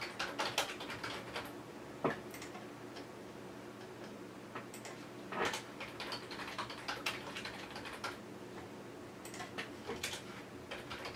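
Typing on a computer keyboard: several short bursts of rapid keystrokes separated by pauses of a second or two.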